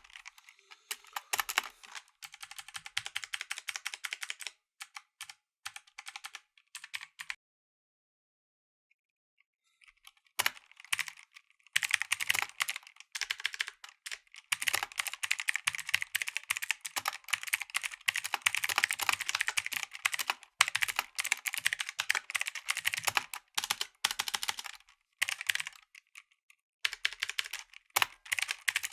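Typing on a mechanical keyboard with blue clicky switches: fast runs of sharp key clicks, in bursts with a pause of a few seconds about a third of the way in, then sustained quick typing.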